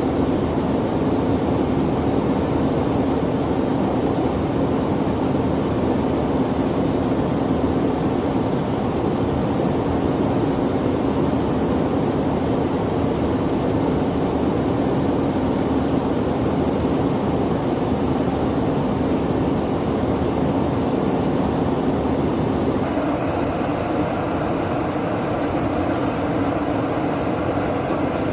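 Steady drone of a KC-135 Stratotanker in flight, engine and airflow noise heard from inside the aircraft, with a steady low hum running through it. About 23 seconds in, the drone shifts abruptly to a slightly different tone.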